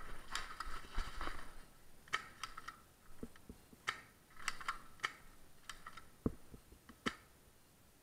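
Footsteps crunching over rubble and broken plaster on a concrete floor: irregular gritty crunches and clicks, with a single sharper knock about six seconds in.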